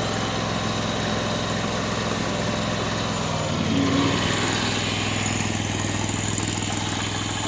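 Mini skid steer's engine running steadily, its note shifting briefly about three and a half seconds in.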